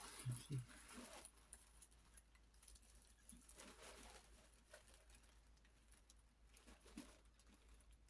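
Near silence: room tone with a few faint, short rustles and soft taps of handling.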